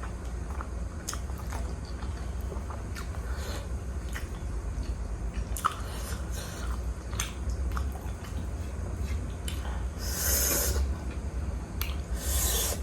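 Close-up wet chewing of juicy pork momo dumplings, with small moist mouth clicks throughout and two longer breathy slurping rushes near the end.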